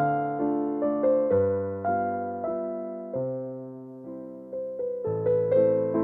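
Background piano music: slow, gentle notes and chords that ring and die away, thinning to a soft passage in the middle before fuller chords come back near the end.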